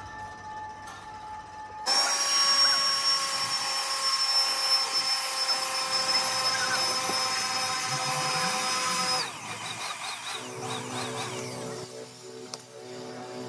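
Handheld electric air blower running at a steady high whine as its nozzle is pointed into a sand casting mould for a truck brake drum. It switches on abruptly about two seconds in and cuts off after about seven seconds.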